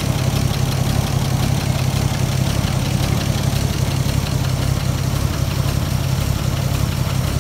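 1932 Chevrolet fire truck's inline-six engine idling steadily.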